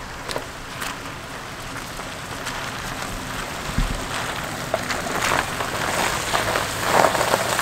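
A vehicle rolling slowly up an icy, snow-covered dirt track, its tyres crackling and crunching over the ground and getting louder as it comes closer.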